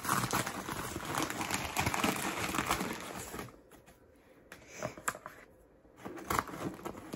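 Packaging crinkling and rustling as a parcel is unwrapped by hand for about three and a half seconds, then a quieter stretch with a few sharp clicks.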